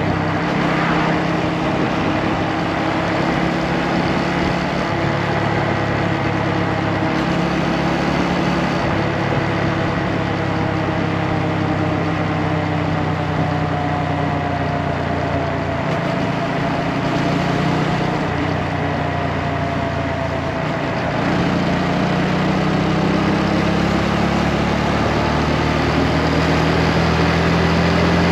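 Motorcycle engine running while riding, its pitch wavering gently and climbing a little near the end, over a steady rush of wind noise.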